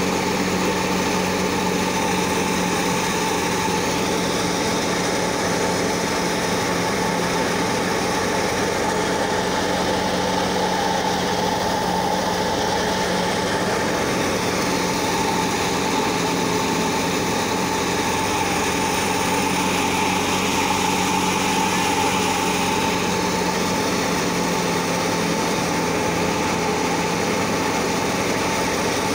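Wheat thresher running steadily as sheaves are fed into it: a constant mechanical drone with a steady hum that holds unchanged throughout.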